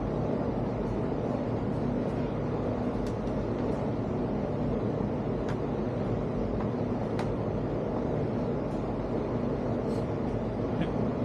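A steady low rumble with a faint hum runs throughout. Over it come a handful of faint, sharp metallic clicks, from an Allen wrench working the 4 mm hinge screws of a camp fridge lid.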